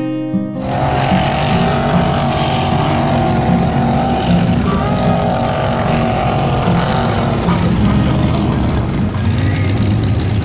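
Acoustic guitar music cuts off about half a second in. It gives way to the engines of trucks driving across a mud field, a loud steady drone that wavers a little in pitch.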